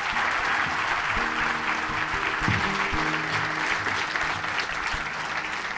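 Audience applauding, with background music still playing underneath; the clapping eases off slightly near the end.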